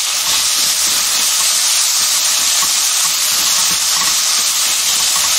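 Diced pork and onion sizzling in oil in a nonstick wok, a steady loud hiss, with light scrapes as a silicone spatula stirs them.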